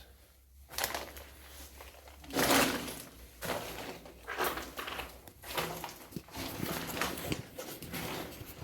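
Irregular scuffing and rustling noises, a string of short scrapes with the loudest about two and a half seconds in.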